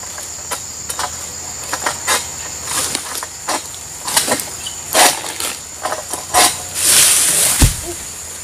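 An egrek (long-pole harvesting sickle) is drawn again and again against an oil palm fruit bunch's stalk, giving short sharp cutting cracks every half second or so. About seven seconds in, the bunch breaks free with a rush of rustling fronds and lands with a heavy thud. A steady high insect drone runs underneath.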